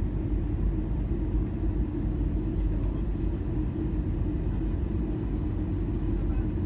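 Steady low rumble of an airliner's engines and airflow heard from inside the passenger cabin.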